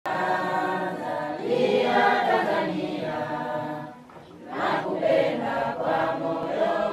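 A group of voices singing together, in two sung phrases with a short break about four seconds in.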